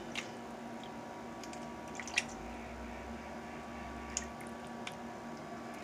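Faint wet squishes and a few light clicks of raw seasoned chicken pieces being handled in a pan, over a steady background hum.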